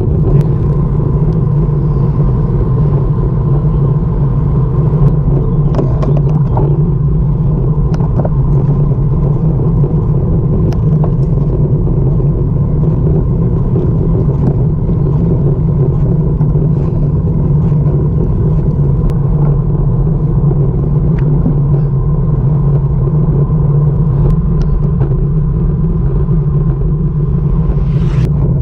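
Wind rushing over a GoPro Hero5 Session's microphone on a moving road bicycle, mixed with tyre noise on asphalt: a loud, steady low rumble with a few faint clicks.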